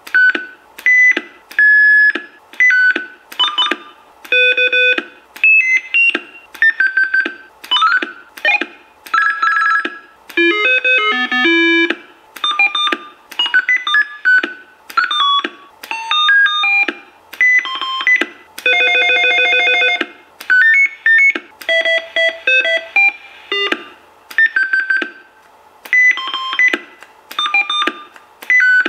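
Roger beeps from a DDS VFO kit in a Uniden Grant LT CB radio, played one after another as the menu steps through its beep patterns. Each is a short electronic tone sequence, a new one about every second, some a single beep and some a quick little tune of stepped tones and chirps.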